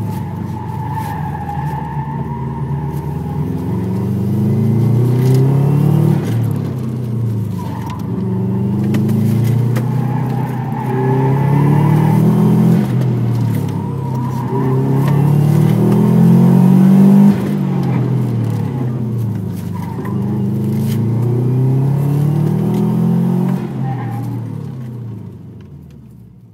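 Subaru Impreza WRX's turbocharged flat-four boxer engine heard from inside the cabin, accelerating hard and easing off again and again, rising in pitch every few seconds. The sound fades away near the end.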